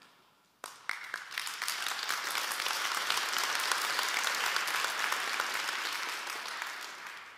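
Audience applauding: the clapping starts suddenly under a second in, swells, then fades out near the end.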